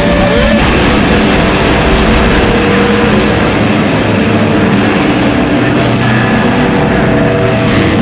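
Loud, distorted street din: amplified music with a few held notes from a street performer's loudspeaker, mixed with crowd noise.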